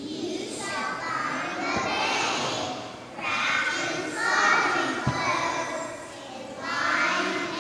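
A young children's choir singing together in unison, line by line with short breaks between phrases. A light knock about five seconds in.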